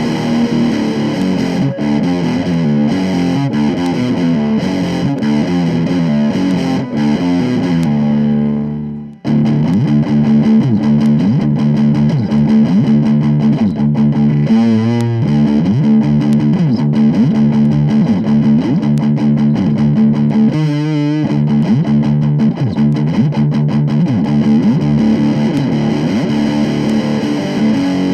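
Vintage 1970s Univox Hi-Flier Phase 3 electric guitar played through distortion, chords and held notes. About nine seconds in the sound dies away and picks up again, now with a repeating sweep running through the tone.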